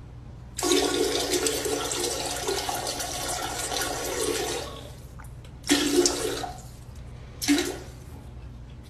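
Toilet flushing: a loud rush of water for about four seconds, then two shorter bursts of sound.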